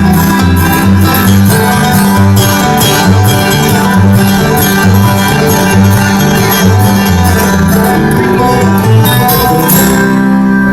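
Country-bluegrass band playing the instrumental ending of a song: strummed guitar over a steady, bouncing bass line, with a little fiddle. Near the end it settles into a held final chord.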